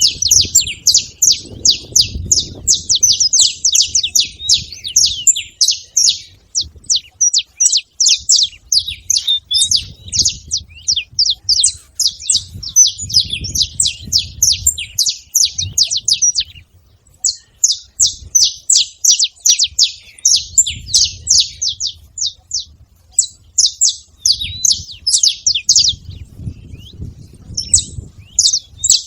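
A flock of saffron finches (canário-da-terra) chirping and calling rapidly over one another in a dense, almost unbroken chatter, with a short pause a little past halfway. A faint low rumble comes and goes underneath.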